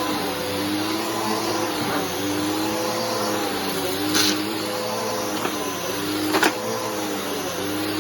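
Bissell Powerforce Helix 3313 upright vacuum cleaner running while vacuuming, its motor tone wavering slightly. Two brief clicks about four seconds in and again near six and a half seconds.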